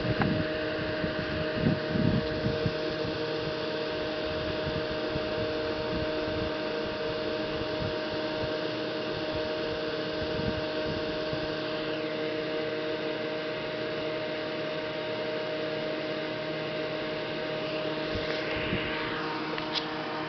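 Steady machine hum with hiss and a few steady tones. Near the start come a few low bumps, and near the end a faint swish and a click.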